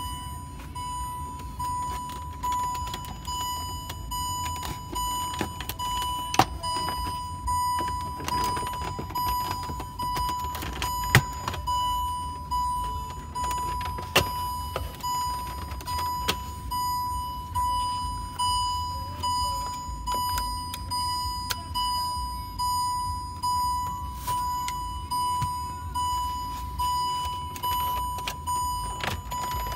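Range Rover Sport's interior warning chime repeating about once a second as a steady single tone. A few sharp plastic clicks and snaps come through as the dash trim is pried loose with a trim tool.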